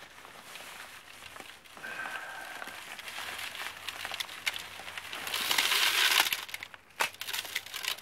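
A plastic bag crinkling as it is handled, then a pour of granules from the bag into a bucket, a loud rush lasting about a second a little past halfway, followed by a few sharp clicks and rustles.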